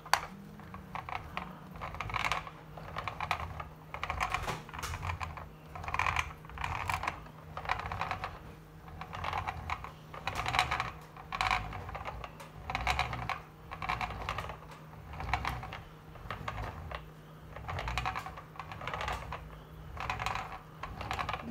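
Die-cast toy Volkswagen bus rolled back and forth by hand over a textured mat, its wheels and pull-back motor making a rasping, clicky sound that swells about once a second. A sharp click right at the start.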